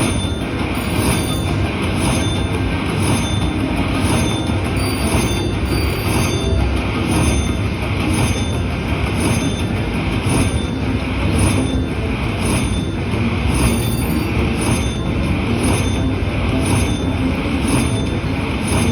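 Firecracker slot machine's bonus-round respin sound effects repeating in a steady pulse, about one and a half beats a second, over a continuous casino din.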